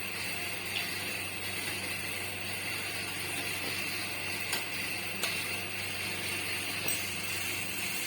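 Rikwach pieces sizzling steadily as they fry in hot oil, with a few light clicks now and then.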